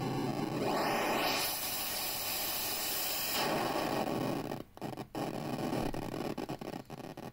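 White-noise hiss from the SN76477 sound chip's noise generator in a DIY synth voice module, its colour shifting as the noise filter knob is turned. A faint rising glide sweeps up in the first second, and after about five seconds the noise cuts out briefly twice and then turns choppy and uneven.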